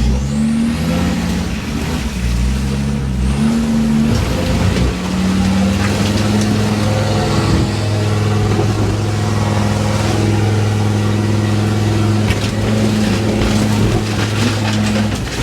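Off-road 4x4's engine revving hard under load on a climb. The revs rise and fall for the first few seconds, then are held high and steady.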